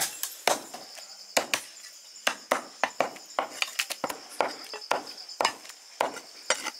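Cleavers chopping mutton on wooden chopping blocks, from more than one cutter at once: sharp, irregular chops, about three a second. A steady high chirring of night insects runs underneath.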